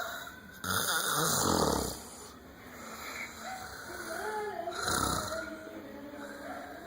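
A man snoring: a long snore lasting over a second near the start, then a shorter one about five seconds in.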